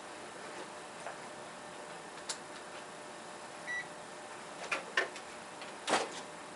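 A digital multimeter gives one short high beep, followed about a second later by several sharp clicks and knocks of handling, the loudest near the end.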